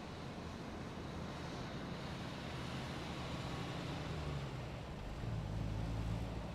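A car pulling in: engine and tyre noise gradually getting louder, with a deeper engine rumble strongest from about five seconds in.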